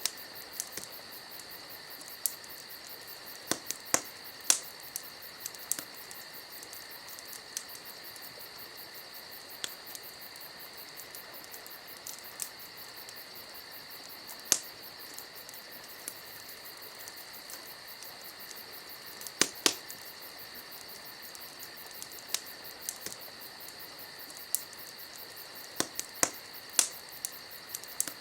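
Campfire crackling, with irregular sharp pops that come in small clusters, over a steady high-pitched insect chorus.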